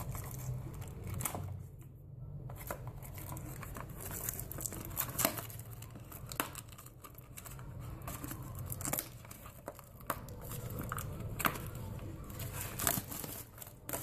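Foil booster pack wrapper being handled and torn open by hand, with irregular crinkling and crackling rustles throughout.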